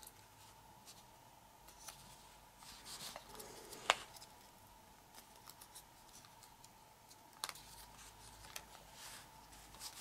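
Faint rustling and crinkling of origami paper being creased and shaped by fingers, with a couple of sharp paper clicks about four and seven and a half seconds in.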